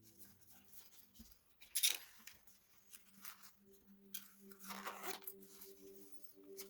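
Handling noise from small pocket tools: a few scattered clicks and rustles, the loudest about two seconds in and a longer rustle around five seconds in, as a small multitool or pair of mini pliers is picked up and handled.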